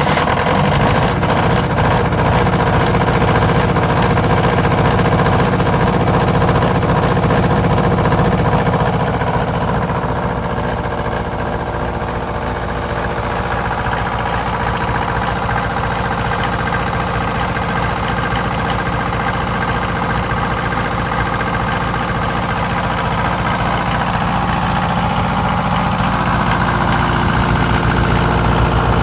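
Diesel engine of an MEP-03A military generator set running steadily just after a cold start, with an even low chugging pulse throughout.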